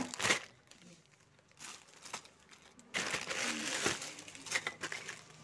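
Plastic packets of Christmas decorations crinkling as they are handled, in two spells: briefly at the start and again from about three seconds in.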